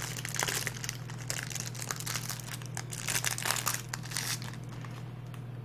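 Plastic wrapping of a sealed trading card deck crinkling and tearing as it is cut open, in irregular rustles that die down about four and a half seconds in. A steady low electrical hum runs underneath.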